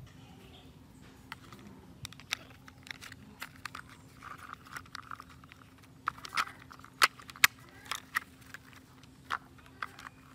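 Hard plastic toy excavator parts clicking, knocking and rattling as they are handled and fitted together, with a few sharper clacks in the second half.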